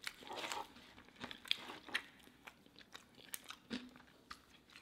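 Close-miked mouth sounds of chewing a crisp deep-fried taco: a louder burst of crunching in the first half-second, then scattered sharp crunches as the chewing goes on.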